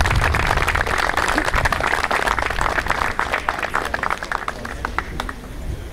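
A crowd applauding, the clapping thinning to a few separate claps and stopping about five seconds in.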